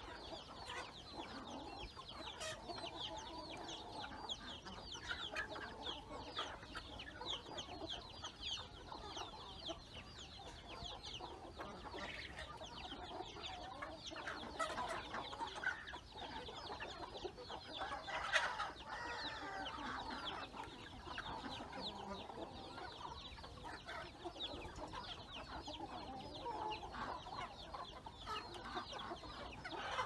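A farmyard flock of chickens feeding: hens clucking in the mid range under a constant chatter of high, quick, falling peeps, with one louder call about two-thirds of the way through.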